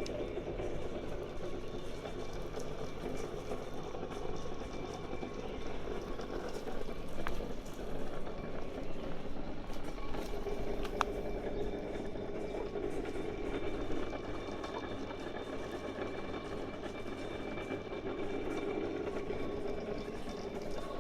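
Funicular car of the Nishi-Shigi cable line running on its track: a steady, noisy rush that swells in the second half, with faint thin high tones and a few isolated clicks.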